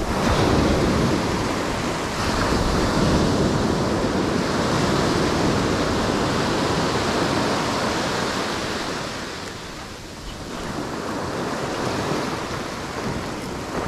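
Ocean surf breaking and washing up over shallow sand in a steady rush of water that eases off about ten seconds in and then builds again.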